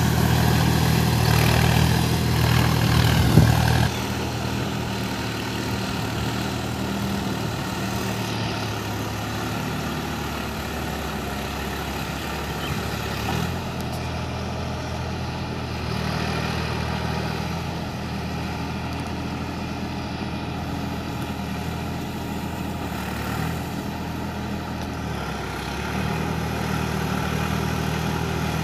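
Sonalika tractor's diesel engine running steadily under load while it drives a Shaktiman rotavator through flooded paddy mud. It is louder for about the first four seconds, then drops suddenly and carries on lower and more distant.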